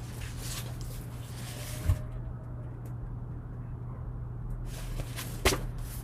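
Room tone with a steady low hum, broken by a soft low thump about two seconds in and a short sharp click near the end.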